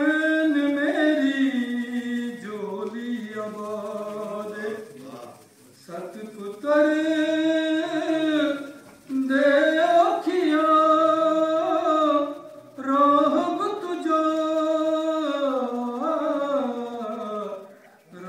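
A man chanting a devotional poem from a book, unaccompanied, in four long melodic phrases of held, gliding notes with short breaks for breath between them.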